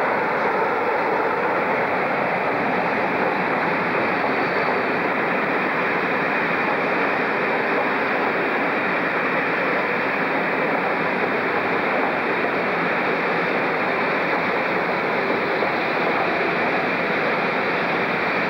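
InterCity passenger coaches rolling past on the rails: a steady rushing rumble that does not rise or fall.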